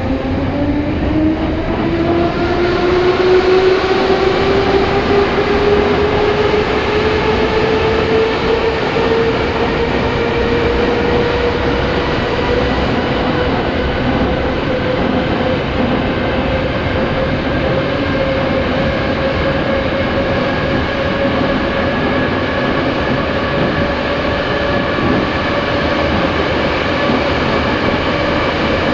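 Vintage Moscow metro car running in a tunnel, heard from inside the passenger car: the traction motor whine rises in pitch as the train accelerates and levels off at running speed after about ten seconds, over a steady rumble of wheels on rail.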